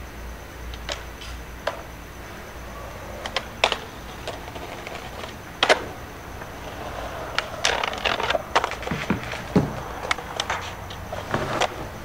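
Skateboard sounds from a skate video playing through a laptop speaker: scattered sharp clacks of the board, getting busier with a rolling rush and a few heavier knocks from about seven to ten seconds in.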